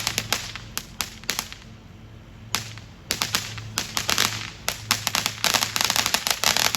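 Consumer firework going off in a string of sharp pops, spaced out at first, then a dense, rapid crackle from about five and a half seconds in.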